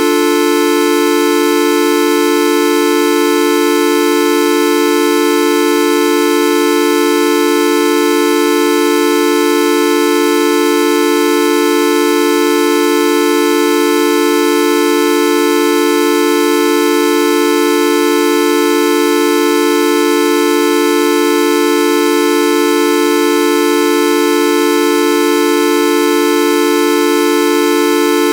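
The "Videoup V1.2" sound effect: a loud, unbroken horn-like buzzing tone with many overtones, held at one pitch without any change.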